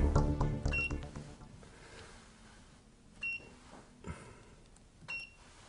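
Infrared sauna's touchscreen control panel beeping as it is pressed: three short high beeps spread a couple of seconds apart. Background music fades out in the first second or so.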